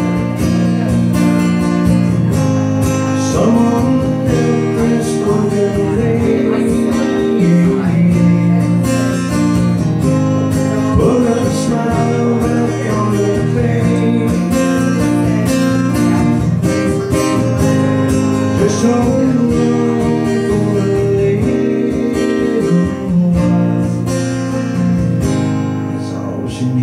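Solo acoustic guitar strummed and picked: an instrumental break between sung lines of a song.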